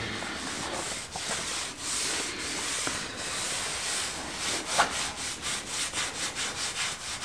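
Cloth rag rubbing over timber slats, wiping on boiled linseed oil: a steady scrubbing hiss that breaks into short back-and-forth strokes, about three a second, in the last two seconds.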